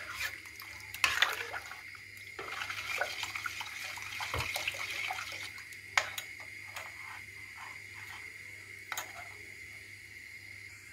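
Metal spoon stirring a thin milk-and-flour custard in a stainless steel pot: liquid swishing, with the spoon scraping and clinking against the pot and a few sharper knocks. It is stirred steadily while it heats so that it does not go lumpy.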